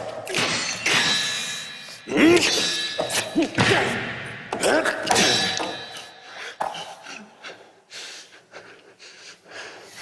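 Stage sword fight: metal blades clashing with a brief ring, thuds and knocks, and shouted grunts from the fighters, dying down after about six seconds.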